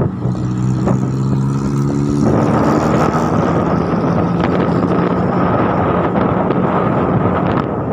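Vehicle engine droning with wind and road noise while travelling at speed. A steady engine hum is strongest for about the first two seconds, then the sound is mostly rushing wind and road noise with a fainter hum underneath.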